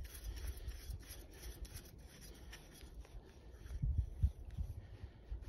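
Threaded pump cap being screwed onto a metal stove fuel bottle by hand: a faint, quickly repeated rubbing and scraping of the threads, with a few low thumps about four seconds in.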